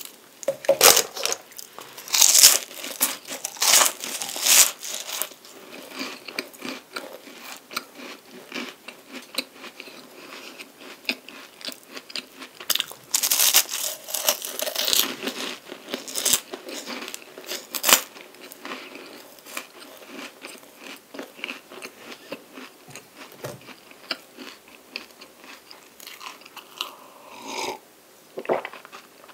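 Close-miked crunching and chewing of a chocolate-coated palmier carré, a crisp flaky puff pastry. The loudest crunchy bites come about two to five seconds in and again around thirteen to sixteen seconds, with softer chewing between.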